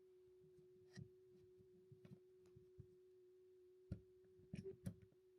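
Near silence: a faint steady hum with a few soft clicks and taps, a cluster of them near the end.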